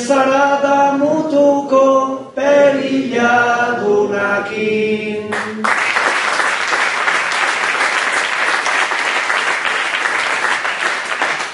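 A man singing an improvised Basque bertso unaccompanied into a microphone, in long held notes. A little past halfway the singing stops and the audience breaks into steady applause.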